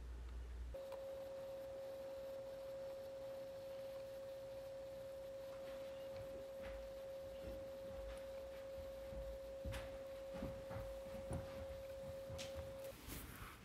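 A steady pure tone at one unchanging pitch, starting about a second in and cutting off abruptly near the end, with a few soft clicks shortly before it stops.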